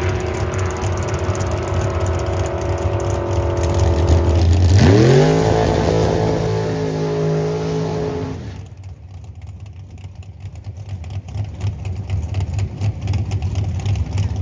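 Drag racing car engine held at steady revs, then climbing sharply in pitch about five seconds in as it accelerates away. The engine sound drops off about three seconds later, leaving a lower rumble that builds again near the end.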